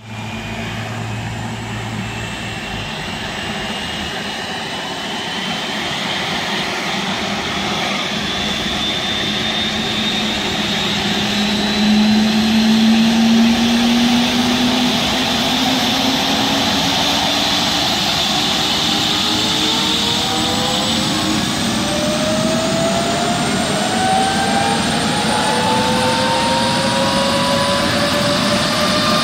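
Eurocopter Dauphin rescue helicopter's turbine engines starting up: a steady whine that climbs slowly in pitch and grows louder as the engines spool up and the main rotor comes up to speed.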